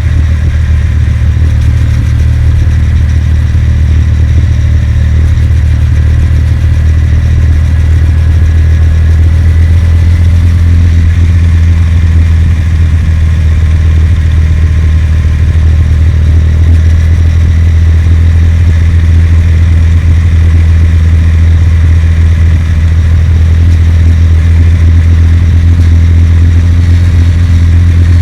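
Kawasaki W800's air-cooled parallel-twin engine running steadily under way, a loud, even low drone with no marked revving.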